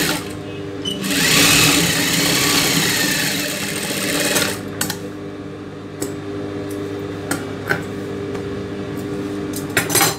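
Industrial sewing machine stitching a silk brocade border strip. It runs briefly, then stitches again for about four seconds, speeding up and slowing, and stops. The motor keeps humming quietly afterwards, with scattered clicks and rustles as the fabric is handled.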